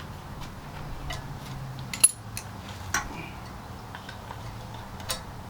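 Scattered small metal clicks and clinks from hands fitting grommets and parts on a small engine. The sharpest click comes about two seconds in, with others about a second later and near the end.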